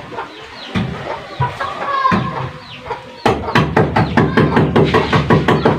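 Chicken clucking, with a quick even run of clucks, about five a second, starting a little past halfway.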